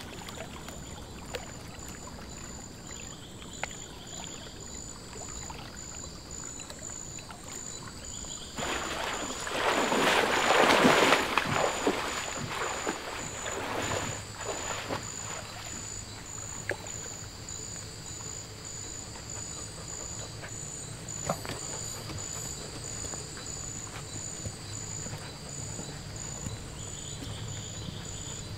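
Rainforest insects trilling steadily at a high pitch, with a fast pulsing buzz. About nine seconds in, water splashes and churns for several seconds as a person wades through a river, the loudest sound.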